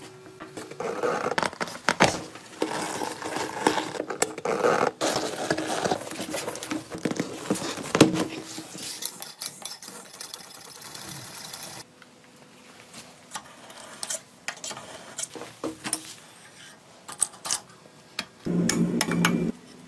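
Workshop handling sounds as a motorcycle tyre is worked onto a spoked rim: a string of clicks, knocks and clinks of rubber and metal, busiest in the first half and with a short louder burst near the end.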